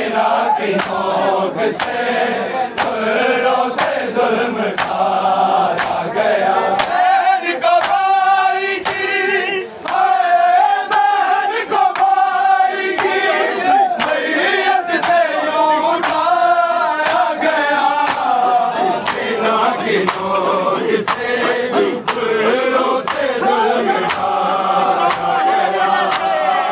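A noha, an Urdu lament, sung by a lead voice with a crowd chanting along. Sharp hand strikes keep a steady beat throughout.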